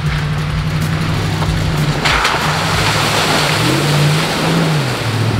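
Off-road vehicle's engine pulling steadily. About two seconds in, a rush of splashing water starts as it drives through a deep water hole and goes on to the end. The engine revs up and back down near the end.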